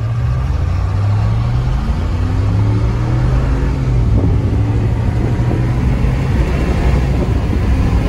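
Ram pickup truck engine running under way. Its pitch rises a little about two to three seconds in, then holds steady over a heavy low rumble.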